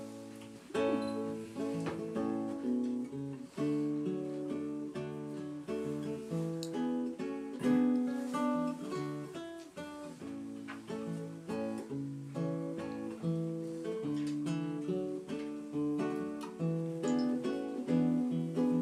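Classical guitar played solo, a continuous run of fingerpicked notes and chords.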